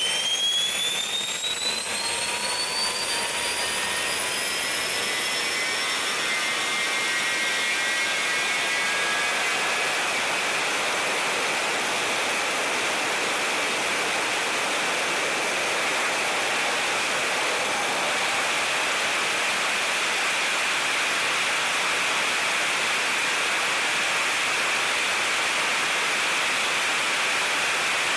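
Jet engine spooling up: a high whine climbs in pitch over the first few seconds and fades out, leaving a steady, even rush of jet noise.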